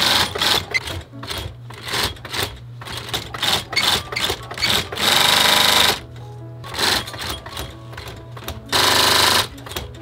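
Myungsung industrial leather sewing machine stitching a boot upper in short stop-start bursts, with two longer runs of about a second each, around five seconds in and near the end.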